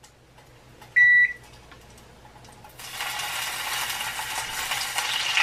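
A single short electronic beep about a second in, the loudest sound here. About three seconds in, a sizzle starts and builds as milk is poured from a gallon jug into hot melted butter in a saucepan.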